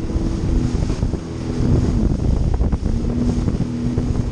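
Jet ski engine running under way, a steady drone whose pitch dips briefly about a second in and again near the end, with wind buffeting the microphone.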